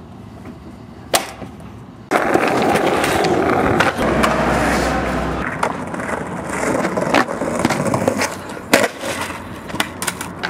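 Skateboard on concrete: a single sharp clack about a second in, then the wheels rolling loudly from about two seconds in, broken by several hard clacks and slaps of the board hitting the ground.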